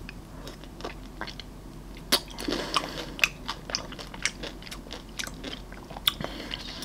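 Close-miked mouth sounds of biting into and chewing a coated Helados Mexico ice-cream bar: the crunchy coating crackles in many small snaps, with sharper bites about two, three and six seconds in, and wet chewing between.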